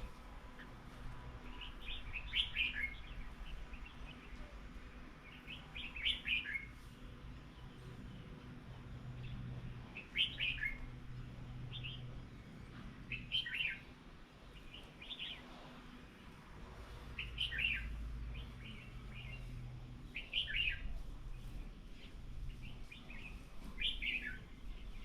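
Small birds chirping: short bursts of quick high notes that drop in pitch, repeated every few seconds.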